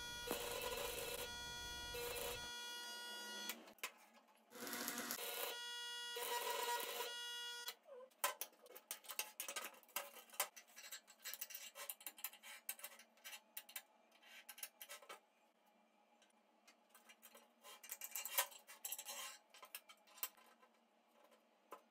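Electric arc welding on steel flat bar. The arc gives a steady buzz in stretches over the first several seconds, then crackles and spits irregularly through most of the rest.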